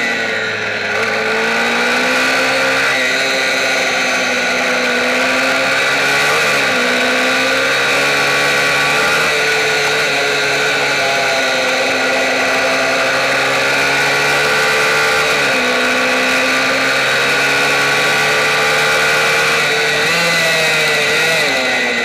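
Onboard sound of a MiniGP racing minibike's engine running hard, its pitch dipping briefly and climbing again several times through the lap.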